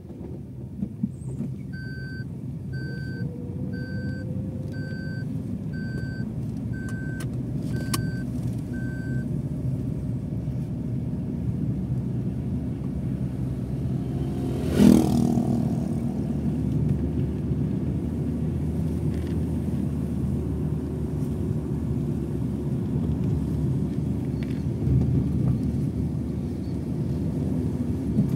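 Steady low rumble of a vehicle driving along a road. In the first third there are eight short electronic beeps, about one a second. About halfway through, an oncoming motorcycle passes close by with a brief loud rush of sound, the loudest moment.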